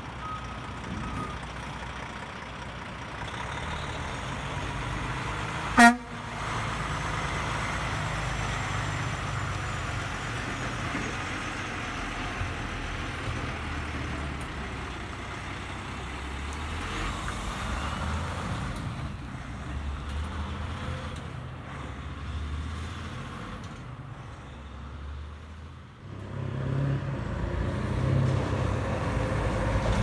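Heavy trucks driving past, with a steady low diesel engine rumble and road noise. A single very short, loud blip about six seconds in, and a louder engine near the end.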